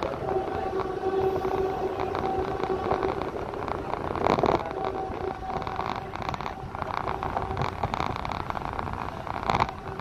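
Road and engine noise inside a moving vehicle, with a steady hum and two short louder jolts, about four seconds in and near the end.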